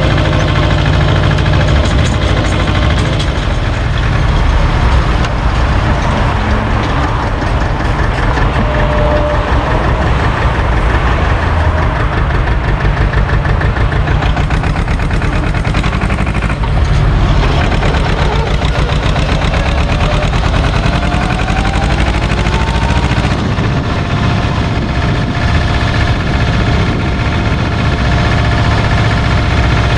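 Engine of an orange SAME tractor running steadily as the tractor drives along, heard close up from behind the seat.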